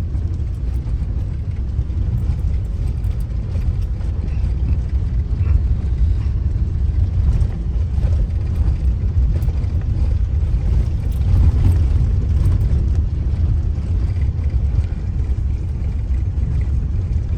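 Car driving slowly over a road under construction, heard from inside the cabin: a steady low rumble of engine and tyres.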